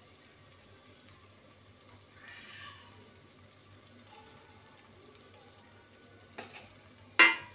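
Faint sizzling of rice cooking in oil and water in an aluminium pot, with sharp knocks near the end as a metal spatula strikes the pot.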